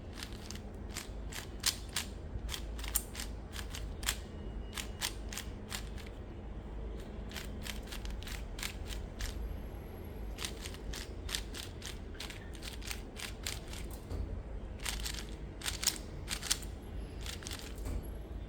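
Plastic puzzle cubes being handled, giving many irregular sharp clicks and clacks, some in quick runs.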